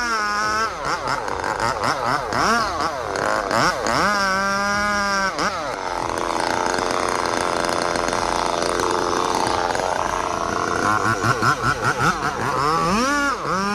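Chainsaw engine revving up and easing off over and over as it cuts, with a steadier stretch of running midway, then quick revs again near the end.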